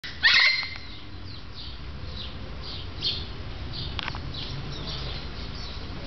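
A scarlet macaw gives one short, loud, harsh squawk just after the start. Faint, quick, high chirps of smaller birds follow, each sweeping downward, about two a second.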